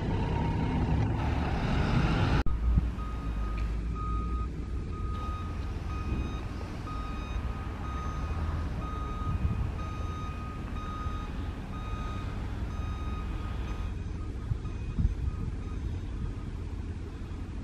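City buses running, the first passing close by and louder, then a steady engine rumble after a cut. Through the middle, a vehicle's reversing alarm beeps about once a second, then stops.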